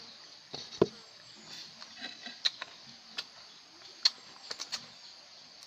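A scattering of short, sharp clicks and taps from fingers and plates during a meal eaten by hand, about eight in all, over a faint steady high hiss.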